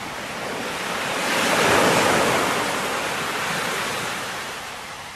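Ocean surf: the rush of breaking waves, swelling to a peak about two seconds in and then slowly dying away.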